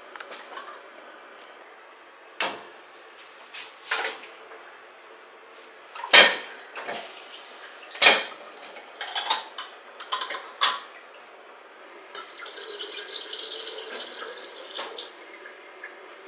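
Stainless lever-press citrus juicer clanking as orange halves are pressed: a few sharp metal knocks, the loudest about six and eight seconds in, with lighter clicks after. From about twelve seconds in, fresh orange juice pours from a glass measuring cup into a pitcher for a few seconds.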